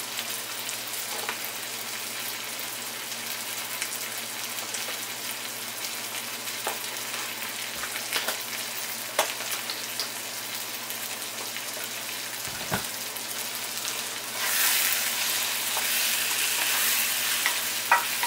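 Brinjals, tomatoes and onion frying in oil in a wok: a steady sizzle with scattered small pops. About fourteen seconds in the sizzle grows louder as a spatula starts stirring the pan.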